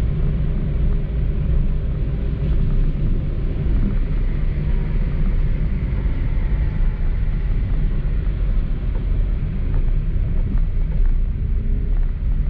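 Car driving in the rain on a wet road: a steady low rumble of engine and tyres with a hiss of wet road noise.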